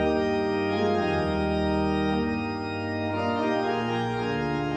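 Organ playing sustained chords that change about every second.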